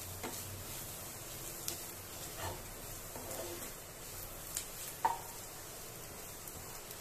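Onion, tomato and spice mixture sizzling gently in a non-stick kadai as a wooden spatula stirs it, sautéing just after chilli powder and turmeric have gone in. There are a few short scraping knocks of the spatula against the pan, the loudest about five seconds in.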